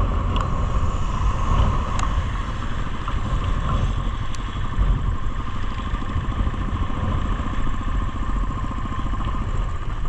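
Motorcycle coasting downhill on a wet road with the clutch held in. The engine idles under heavy wind noise on the microphone and tyre hiss from the wet tarmac, with a few faint ticks.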